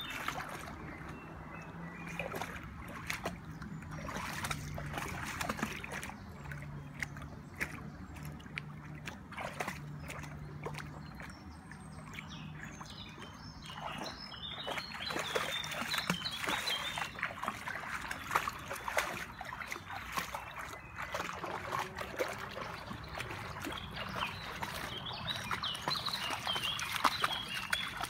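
Dog wading in a shallow stream, its legs splashing and sloshing through the water in irregular bursts, with birds chirping at times.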